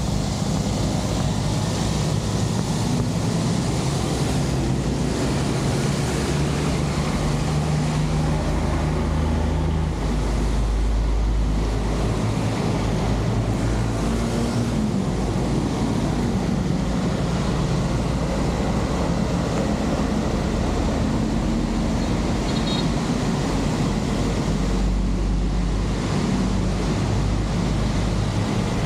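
Heavy rain and muddy stormwater rushing along a roadside channel into a culvert: a steady rushing noise with a low rumble underneath.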